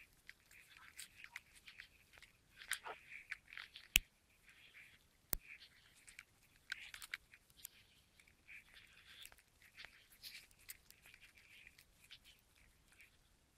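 Irregular crunching of steps in deep snow as a small dog bounds through it on a leash, with two sharp clicks about four and five and a half seconds in.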